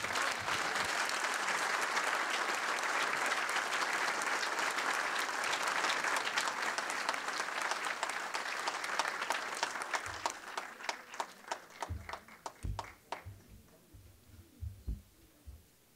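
Audience applauding, dense at first, then thinning to scattered claps that die out about thirteen seconds in. A few low thumps follow near the end.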